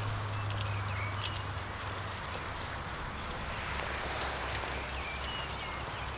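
Garden-scale model train running along its outdoor track, with a steady running noise and scattered clicks of the wheels over rail joints and points, and a low motor hum that fades about two seconds in. Small birds chirp now and then.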